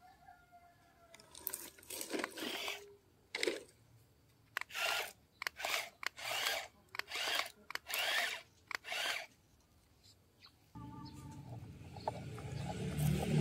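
Toy excavator's bucket scraping and crunching through dry gravel and dirt in about ten short strokes. Near the end a steady low whirring starts and grows louder.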